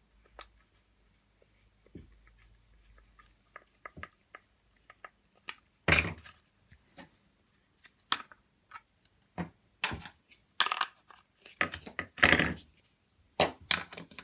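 Plastic parts of a Hoover Curve vacuum cleaner handled and fitted together: faint light clicks at first, then from about six seconds in a series of louder knocks and scraping rattles.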